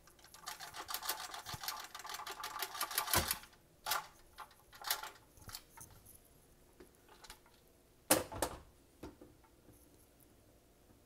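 Instant Pot lid being lifted off and set aside: a run of rapid rattling clicks lasting about three seconds, then a few separate knocks, the loudest about eight seconds in.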